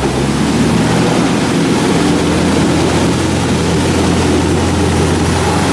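Jungle Cruise tour boat's engine running steadily with a low hum.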